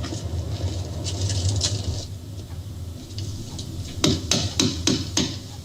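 A quick run of about five knocks on a door, a little over a second long, near the end, over a low steady rumble.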